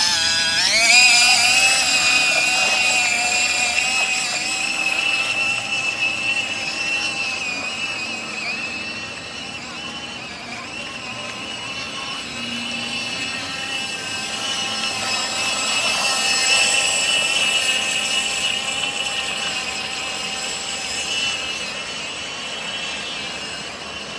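Radio-controlled inflatable boat's motor running at high revs: a high-pitched whine that rises in the first second, then holds steady with slight wavering in pitch as the boat runs.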